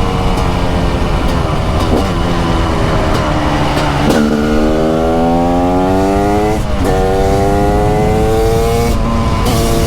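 TM SMR 300 supermoto's carbureted 300cc two-stroke single running under way. The revs fall for the first few seconds, then climb hard from about four seconds in, break sharply at a gear change about seven seconds in, and climb again before dropping back near the end.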